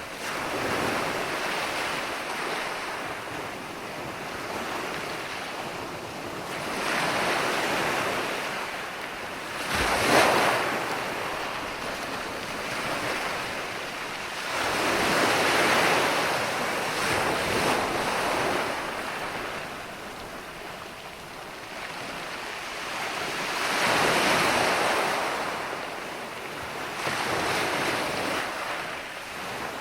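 Ocean surf: waves washing in, the noise swelling and easing every several seconds, with one sharper, louder surge about ten seconds in.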